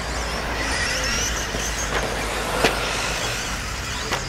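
Electric 1/10-scale RC off-road cars racing, their motors giving high whines that rise and fall with the throttle. There is a sharp knock about two and a half seconds in.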